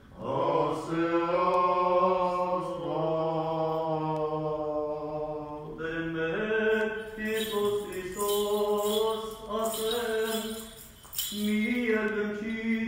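A single male voice chanting Armenian Apostolic liturgical chant, holding long notes that step up and down between pitches.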